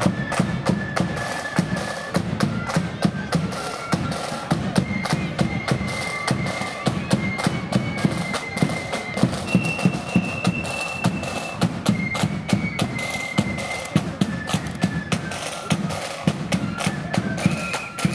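Marching flute band playing a tune: a unison melody of high flutes over rapid snare-drum rolls and a heavy bass drum.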